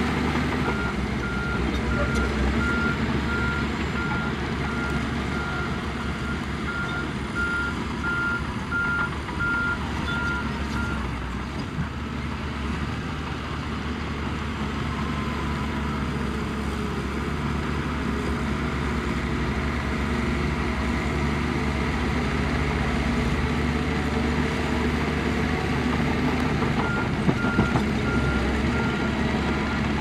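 Heavy construction machinery engines running steadily, with a reversing alarm beeping at an even pace for the first ten seconds or so and again near the end, the sign of a machine backing up.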